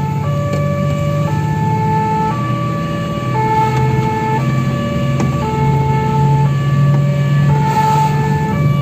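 Fire engine's two-tone siren alternating between a high and a low note about once a second, over the steady low drone of the truck's engine.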